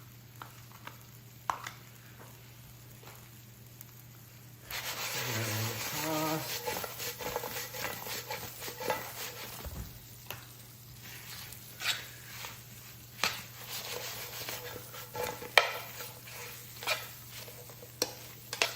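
Roasted potatoes sizzling in a hot pan as romesco sauce goes in and is stirred through. The sizzle starts suddenly about four and a half seconds in, and a utensil knocks and scrapes against the pan repeatedly.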